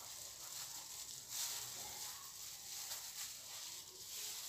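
Faint rustling and crinkling of thin plastic food-prep gloves handling a flatbread wrap as it is lifted out of a frying pan, a little louder about a second and a half in.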